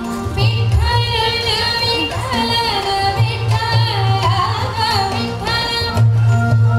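A woman singing a slow, ornamented melody that glides and bends in pitch, over steady held instrumental accompaniment. The voice drops out about a second before the end, leaving the accompaniment.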